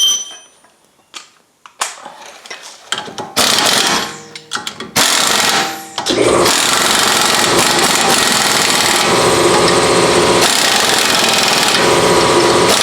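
An air impact wrench runs in two short bursts, snugging up bolts, then the shop's air compressor starts about six seconds in and runs steadily.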